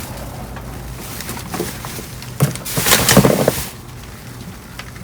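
Trash being shifted around inside a dumpster, with rustling and clattering loudest for about a second in the middle, over a steady low hum.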